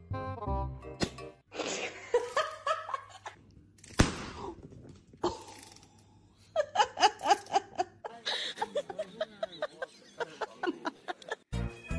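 People laughing in quick repeated bursts, with a single sharp pop about four seconds in, a balloon bursting.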